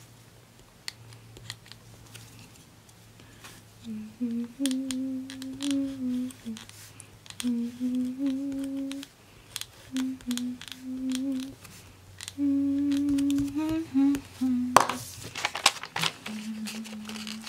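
A woman humming a tune in held notes that step up and down, starting about four seconds in and going on almost to the end. Under it, small dry clicks and scratches of a correction-tape dispenser run across a paper planner page, with one sharp scrape about fifteen seconds in.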